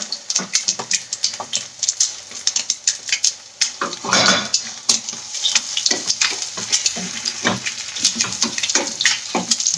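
Wooden spatula scraping and knocking against a stainless steel pan while scooping out hash, with a louder scrape about four seconds in. Eggs sizzle in oil in a second frying pan throughout.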